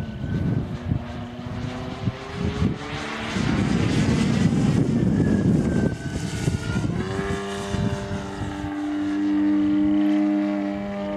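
DLE 222 gasoline engine on canister mufflers powering a 42% Extra 300 RC aerobatic plane, throttling back right at the start. A loud rushing noise swells in the middle. About seven seconds in the engine opens up again and holds a steady higher note.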